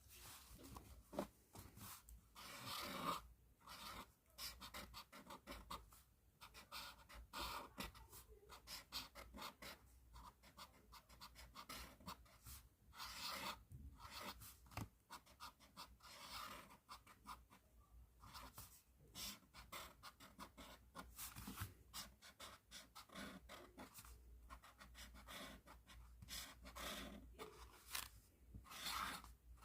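A pen writing on paper: faint, irregular scratchy strokes of the nib across the sheet, in short runs with brief pauses.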